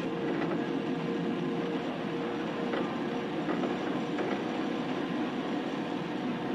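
Tram running along its rails: a steady rolling rumble with a faint steady hum.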